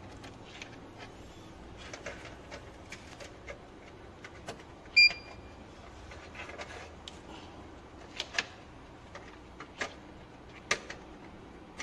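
Clicks and knocks of cable connectors being handled and plugged into the back panel of a CCTV DVR, with a short high beep about five seconds in that is the loudest sound.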